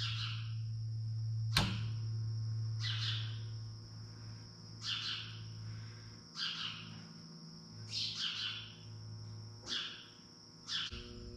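Birds chirping in short calls every second or two, over a steady low hum that fades out about six seconds in, with a thin high steady whine underneath.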